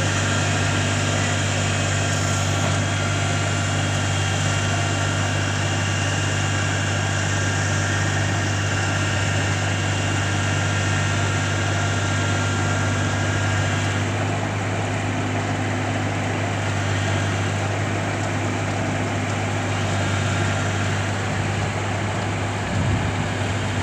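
Kubota DC-35 combine harvester's diesel engine and machinery running steadily, a deep hum with a layer of higher whining tones. About 14 s in, some of the higher tones drop away while the engine note carries on.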